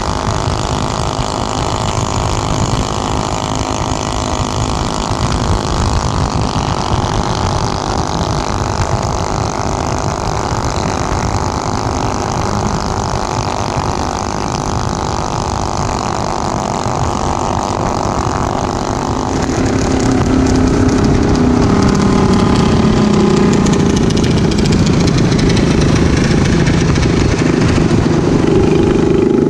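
Motorcycle engines running at road speed, with heavy wind rush over the microphone of the moving bike. About two-thirds of the way in, the sound grows louder and deeper.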